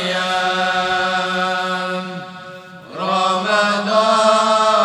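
Arabic devotional chant (nazam) sung by the group's voices: one long held note for about two seconds, a short dip, then a new phrase about three seconds in whose pitch rises and falls.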